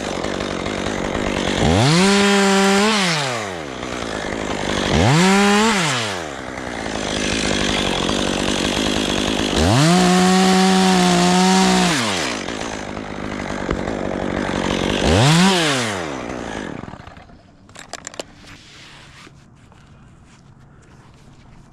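Chainsaw running, throttled up to full speed four times and dropping back between, then stopping about seventeen seconds in.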